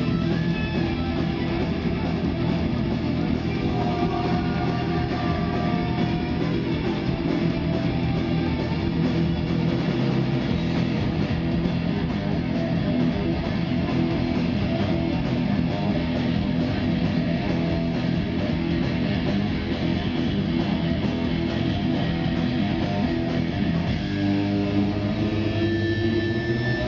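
Live rock band playing an instrumental passage: electric guitars, electric bass and drum kit, heard from the audience over the venue's PA.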